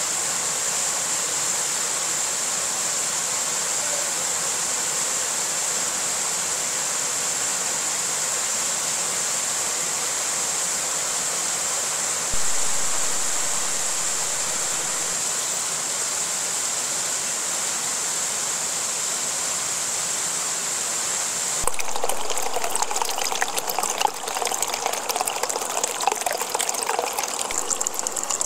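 Waterfall: steady rushing of falling water, changing suddenly about 22 seconds in to a closer, splashier gushing.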